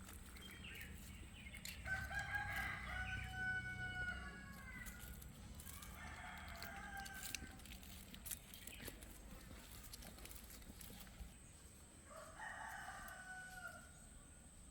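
A rooster crowing three times: one long crow about two seconds in, a shorter one some seconds later, and a third near the end.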